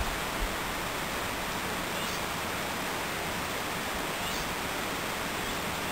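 Steady, even rushing noise of outdoor ambience with no clear events, and a soft low thump just after the start.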